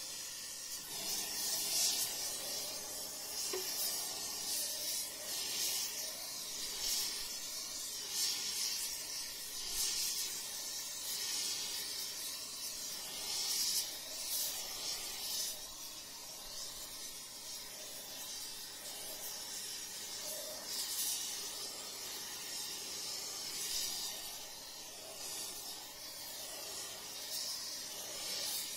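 Heating torch flame hissing steadily against the steel of an excavator stick, swelling louder about every two seconds, as it heats a spot to straighten the warped metal.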